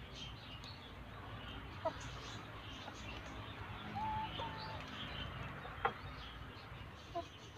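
A flock of brown laying hens clucking softly as they feed. About four seconds in comes one longer, drawn-out call in two parts, and a few short, sharp calls stand out here and there.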